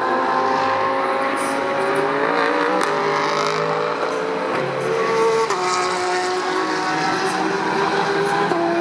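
Several GT3 race cars at speed, their engine notes overlapping, with pitch steps as they change gear, one about five and a half seconds in.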